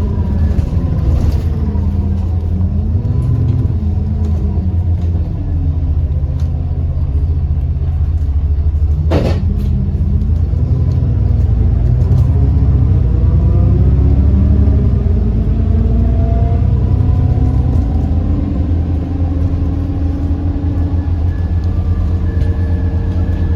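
Alexander Dennis Enviro400 MMC double-decker bus under way: a heavy low rumble, with engine and driveline tones rising and falling as it speeds up and slows, a thin steady whine above, and one sharp knock about nine seconds in. The loud axle noise and turbo whine are signs of a worn-out bus.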